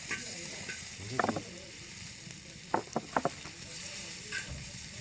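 Pork offal sizzling on a cast-iron cauldron lid over a wood fire: a steady high hiss of frying. A few sharp clicks and taps come about a second in and again around three seconds.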